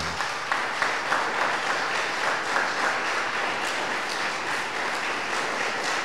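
Congregation applauding, a steady dense clapping without a break.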